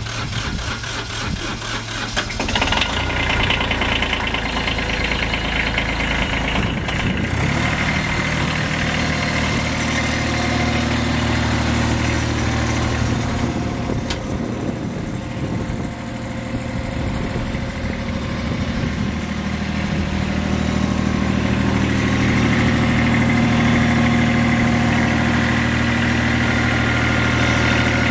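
Kubota B21 backhoe's diesel engine running steadily. Its sound fills out about two seconds in and grows louder again past twenty seconds.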